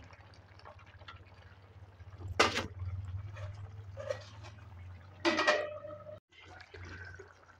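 A spatula stirring simmering curry gravy in a steel kadai, with a sharp clank about two and a half seconds in; about five seconds in a steel plate is set on the pan as a lid with a ringing clang. A low steady hum runs underneath.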